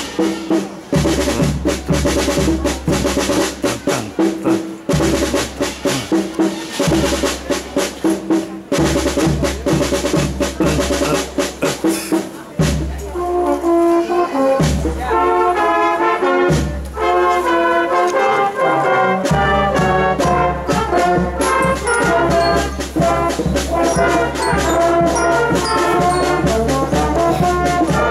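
School marching band parading past: a steady drum beat at first, then a brass melody comes in about halfway through and plays on over the drums.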